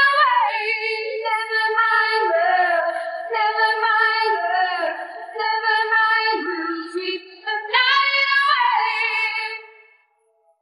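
A cappella pop vocals without backing instruments: several voices sing a drawn-out line in harmony, a lower held note under a moving upper part. They fade out and stop shortly before the end.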